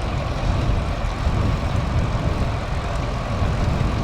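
Strong wind from the left front buffeting the microphone on a moving road bike: steady, low, rumbling wind noise with no distinct events.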